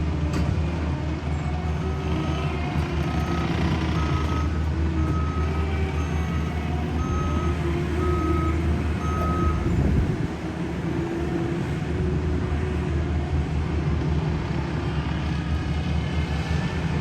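Heavy road-works equipment's diesel engine running steadily, with its reversing alarm beeping about once a second for several seconds, stopping about halfway through.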